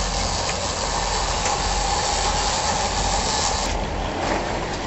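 Charter fishing boat under way: a steady engine hum under the rushing hiss of the wake and wind. About three and a half seconds in, the hiss drops abruptly to a quieter wash of water and engine.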